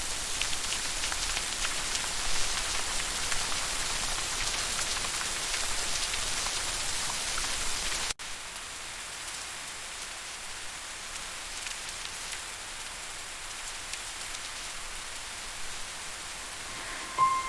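Steady rain falling, an even hiss with fine pattering of drops. About eight seconds in it cuts abruptly to a quieter, softer rain.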